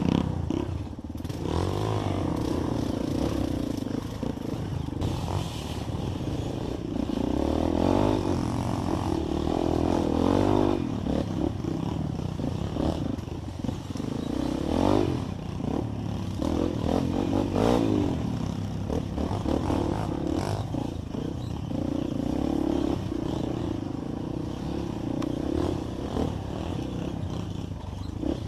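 Off-road trail motorcycle's engine running under load, its pitch rising and falling over and over as the rider works the throttle and gears on rough ground, with some clatter.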